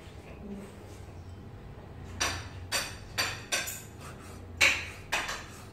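Cleaver chopping raw pork on a chopping board: about six sharp, irregularly spaced chops, starting about two seconds in.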